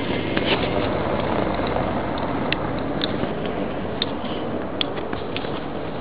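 City street ambience: a steady hum of distant traffic and street noise, with a few sharp clicks scattered through the second half.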